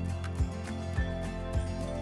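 Background music: held chords over a steady beat, a little under two beats a second.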